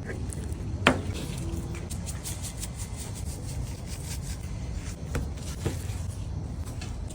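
Handling noises: one sharp knock about a second in, then light ticks and rubbing and two softer knocks near the end, over a steady low rumble.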